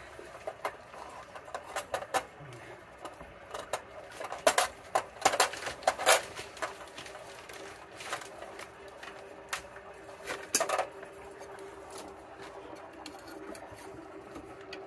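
Irregular clicks, taps and rattles of hands working electrical wires and small metal parts at the top of an electric water heater. A faint steady hum comes in about eight seconds in.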